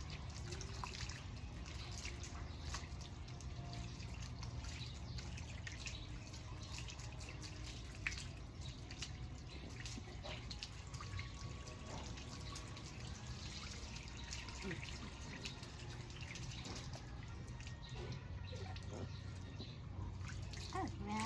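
Water dripping and trickling, with many small irregular drips and clicks over a steady low wash.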